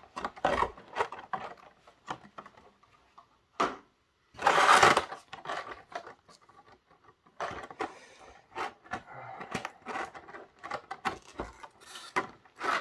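Clear plastic packaging being handled: clicks and crackles of a rigid plastic blister insert and crinkling of a thin plastic film sleeve around a model train coach, with a louder rustle about four to five seconds in.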